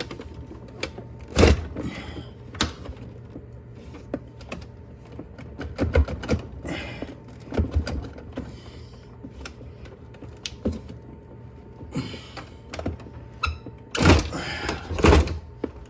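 Plastic ice maker assembly being worked loose from a refrigerator by hand: irregular knocks, clicks and scraping of plastic parts, with a cluster of louder knocks near the end as it comes free.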